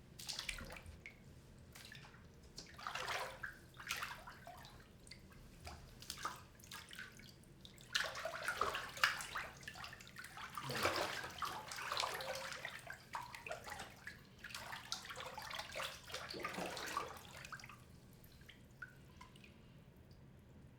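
A person climbing into a filled bathtub: water sloshing and splashing in irregular bursts, with drips. The splashing is heaviest in the middle and settles toward the end.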